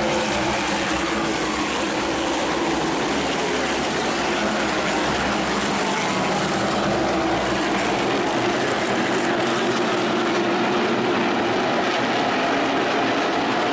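A field of NASCAR Whelen Modified race cars running at speed around the oval. Their V8 engines make a loud, steady drone with no let-up.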